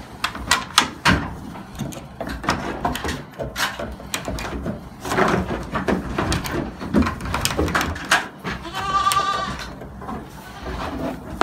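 Goats in a pen: one goat bleats once, a wavering call about nine seconds in, over repeated knocks and clatter of goats jostling against a wooden pallet gate.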